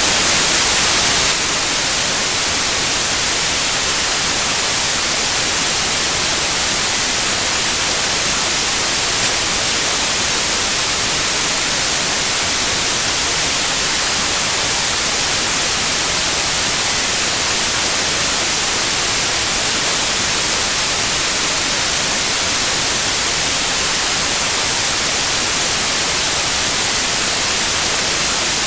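Synthetic white noise hissing steadily. About nine seconds in, a steady, very high-pitched pure tone at 9645 Hz joins it and drops out for a moment near the end: a tinnitus sound-therapy signal.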